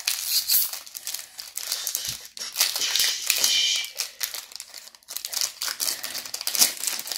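Foil wrapper of a Pokémon TCG Silver Tempest booster pack crinkling and tearing irregularly as it is ripped open by hand.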